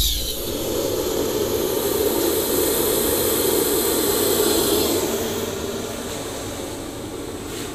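Gas jet burner in a brick firebox lighting with a sudden whoosh, then a steady roaring rush of flame that gets a little quieter after about five seconds.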